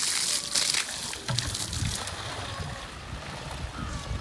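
Water from a garden hose spraying and splashing onto a stack of red clay bricks, soaking them. The hiss drops away about a second in.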